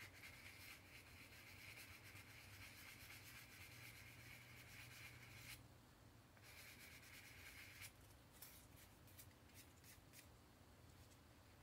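Faint rubbing of a sanding stick on a plastic model car body, sanding down a mold line. The rubbing is steady at first, pauses about five and a half seconds in, and comes back near the end as shorter strokes.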